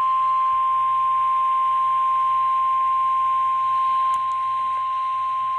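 NOAA Weather Radio warning alarm tone: a single steady, high tone near 1 kHz (the 1050 Hz alert tone) held without a break over radio static. It signals that a weather warning broadcast is about to follow.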